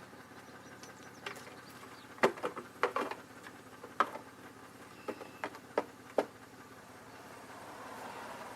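2002 Chevy Malibu engine idling steadily, with a series of sharp knocks and clicks over it from about a second in until about six seconds in.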